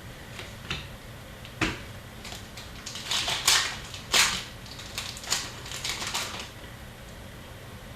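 Trading-card packs being opened and cards handled: a run of crinkles, clicks and slides of wrapper and card stock, busiest in the middle and stopping about six seconds in.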